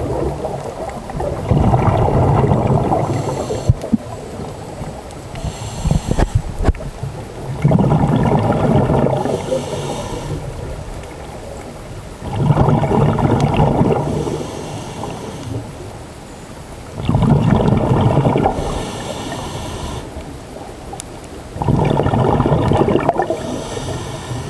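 Scuba diver breathing through a regulator underwater: a short hiss on each inhale, then a rumbling rush of exhaled bubbles, repeating about every five seconds.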